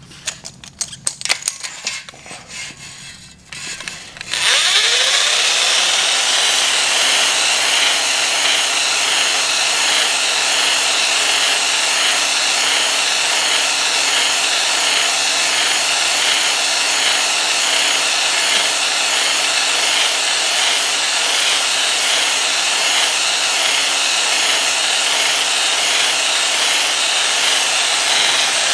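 A corded electric drill spins a stone cylinder hone inside a cast-iron cylinder bore of a Jeep 4.0 engine block. The stones grind steadily against the wall as the hone is stroked in and out, cutting the crosshatch that lets new piston rings seat. It starts suddenly about four seconds in, after a few knocks as the hone is set in the bore.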